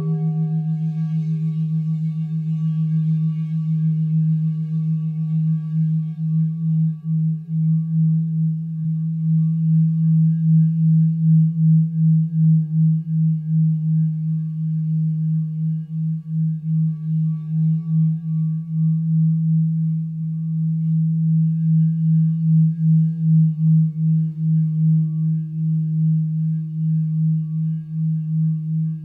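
Crystal singing bowls ringing together, kept sounding by wooden mallets rubbed around their rims. A strong, steady deep tone swells and fades in a slow pulse, with fainter higher tones held above it.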